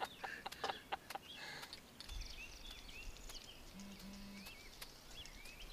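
Small birds chirping with short curving calls, repeated many times, over a low rumble. A few sharp clicks in the first second and a half.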